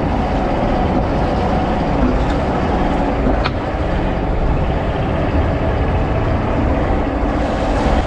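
Fishing boat's diesel engine running steadily, a loud even rumble. A single sharp tick comes about three and a half seconds in.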